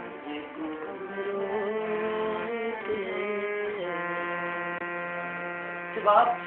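Music: a slow melodic line of long held notes moving in steps over a steady low drone.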